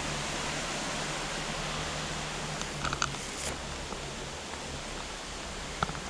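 Steady, even rushing background noise on the trail, with a few faint clicks about halfway through and again near the end.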